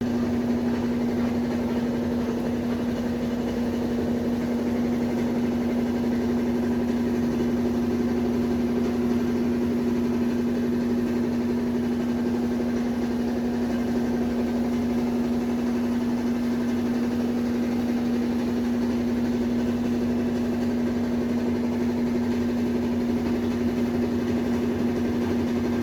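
Brastemp BWH15A top-load washing machine running at a steady speed: a steady motor hum with a strong mid-pitched tone and no knocking.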